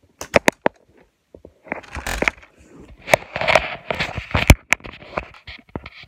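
Handling noise of a phone being picked up and moved: sharp clicks and knocks with stretches of rustling and scraping on the microphone, and one loud knock about four and a half seconds in.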